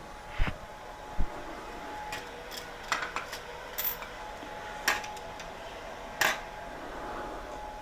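Several sharp clicks and clinks of hard objects being handled, with two dull thumps in the first second, over a steady hum.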